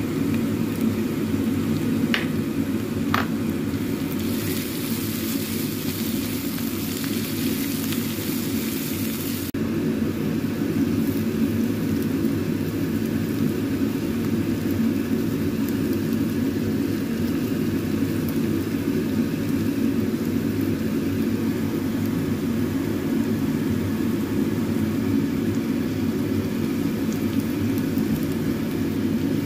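Spice paste sautéing in a nonstick pan over a steady low rumble. A brighter sizzling hiss rises about four seconds in and cuts off abruptly near ten seconds, and two sharp ticks come just after two and three seconds.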